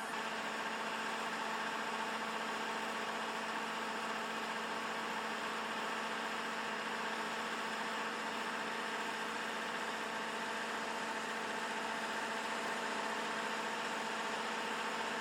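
Kubota five-row combine harvester running steadily, a constant engine and machinery hum with no change in pitch or level.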